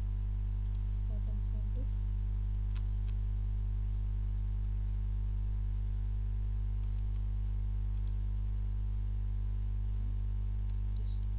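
Steady low electrical mains hum with a buzzing stack of overtones on the recording, unchanging throughout, with a faint click about three seconds in.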